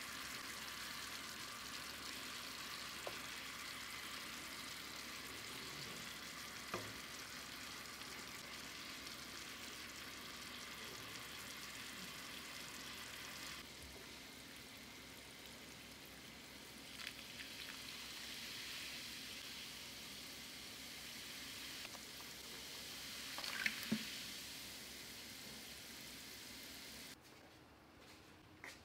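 Chicken drumsticks sizzling faintly and steadily in a frying pan of onion and cola sauce, with a few light taps of a wooden spatula against the pan. The sizzle cuts off about a second before the end.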